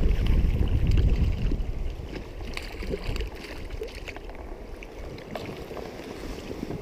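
Wind rumbling on the microphone, easing after about two seconds, over the steady rush of a flowing stream with a few faint ticks.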